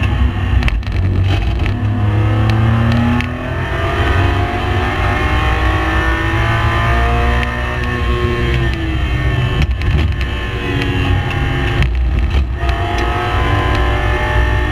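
Race car engine under hard throttle, its pitch climbing and falling through the gears, with brief breaks in the sound at the gear changes.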